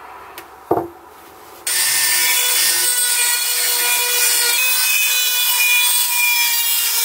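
Dremel rotary tool with a small grinding stone grinding the steel tang of a screwdriver: a steady motor whine over harsh grinding noise, starting abruptly about a second and a half in and running on. A brief knock comes just before it starts.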